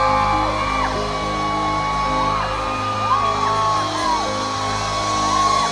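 Live regional Mexican band playing the instrumental introduction of a song: steady sustained chords over a bass line, with short sliding high notes that arch up and down again and again.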